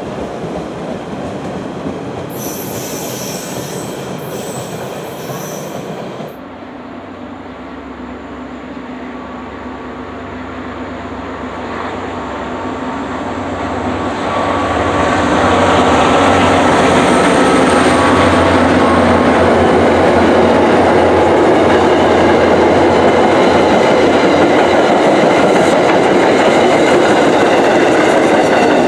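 For about the first six seconds, an MBTA Orange Line subway train pulling into the platform. Then an MBTA Commuter Rail train led by an EMD GP40MC diesel locomotive approaches, growing louder and then staying loud and steady as the locomotive and its coaches pass on the rails.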